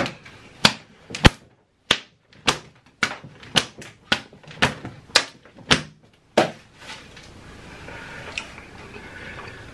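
A quick run of about a dozen sharp slaps and smacks, roughly two a second, from two people swatting at each other with their hands and a cloth. The slaps stop about six and a half seconds in.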